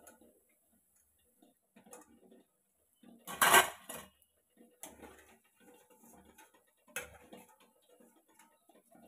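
Wire skimmer clinking and scraping against a stainless steel kadai as fried bread slices are lifted out of the oil. The loudest clatter comes about three and a half seconds in, with another sharp knock about seven seconds in and a few light clicks between.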